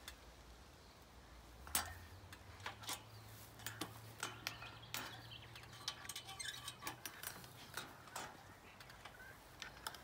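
Steel trampoline springs clinking and clicking as they are levered off one after another with a homemade spring-pulling tool. A sharp clank about two seconds in, then a run of lighter metallic clicks.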